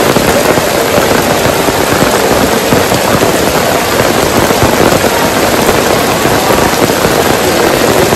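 Heavy rain pouring onto wet stone paving and a shed roof: a loud, steady downpour, dense with splashing drops.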